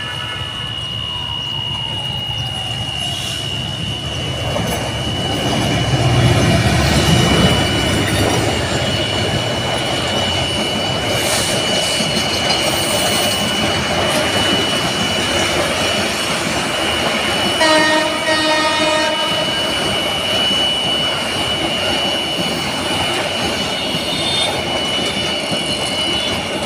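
Bangladesh Railway intercity passenger train passing close by: the rumble swells loudest about six to eight seconds in, then the coaches' wheels run on in a steady clatter and rumble. A horn blasts for about a second roughly two-thirds of the way through, over a thin steady high whine.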